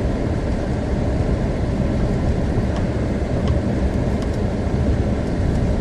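Steady in-cabin drone of a car creeping through deep, slushy snow: a low engine and tyre rumble.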